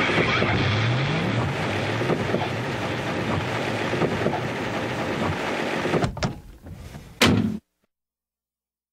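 Loud heavy rock song, dense and steady, that thins out about six seconds in, gives one last loud hit about a second later and then cuts off suddenly.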